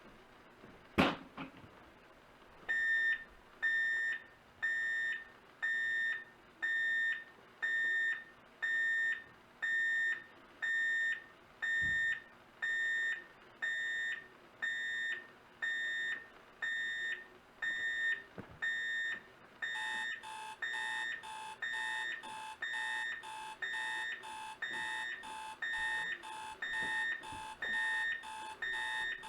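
A sharp click, then a 1976 Sears 7196 alarm clock's alarm beeping steadily at about one beep a second. About twenty seconds in, a second alarm, a 1983 KMC/Kmart 500A clock's, joins with a faster, lower beep, and the two sound together.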